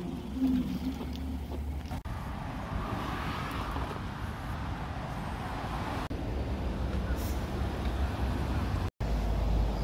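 Street ambience: road traffic rumbling steadily along a city street, cut short by brief breaks where clips are joined.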